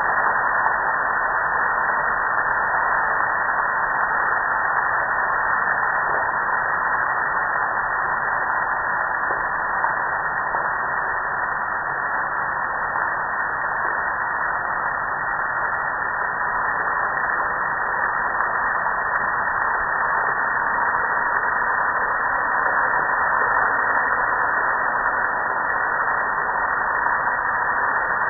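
Soapy water spraying and pouring over a metal gas grill: a steady hiss that runs without a break.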